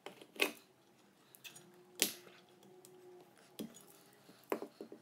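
A few light clicks and taps from handling the unplugged plastic wiring connector of an exercise bike's resistance motor, the sharpest about two seconds in, followed by a faint brief hum.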